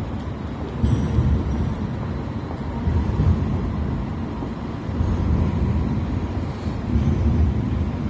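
Wind buffeting a phone's microphone: a low, gusty rumble that swells and eases every second or two, over faint street background noise.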